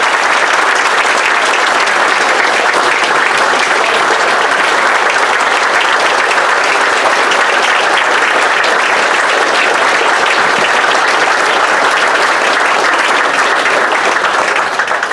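A large audience applauding steadily, many hands clapping densely together.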